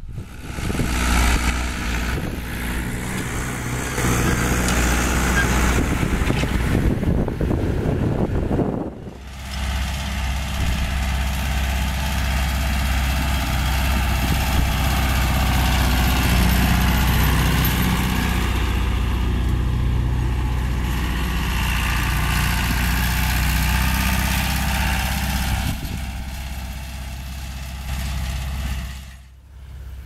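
John Deere 2850 tractor's diesel engine running steadily under load while it pulls a disc harrow through worked soil. The sound changes abruptly about nine seconds in and again near the end.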